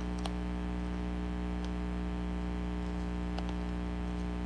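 Steady electrical mains hum, with three faint snips of scissors cutting paper.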